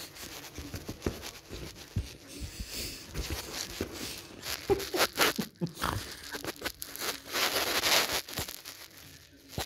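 Trouser fabric rustling and scratching in irregular bursts as a domestic shorthair cat paws and claws at a person's legs, with scattered clicks and a louder rustle near the end.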